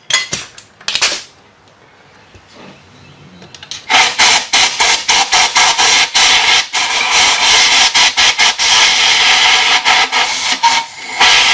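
Compressed-air blow gun blasting debris out of a threaded hole in a pulley hub: a loud, fluttering hiss that starts about four seconds in as the trigger is worked, stops briefly near the end, then starts again. A few light handling clicks come before it.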